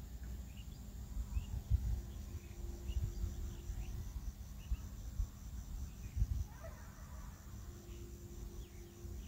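Faint dull knocks and clicks of small metal gearbox parts being handled and fitted by hand on an angle-cutter's armature shaft, with faint short chirps in the background.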